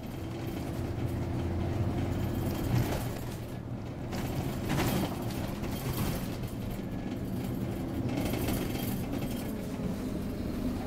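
Scania OmniCity double-decker bus heard from inside the cabin: the engine running steadily while the bus moves slowly, with rattles and a few sharp clicks from the bodywork and fittings.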